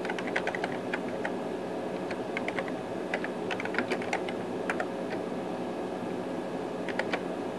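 Keystrokes on a computer keyboard typing a console command in quick runs of clicks. The typing pauses for a couple of seconds, then a few last keys come near the end, over a steady background hum.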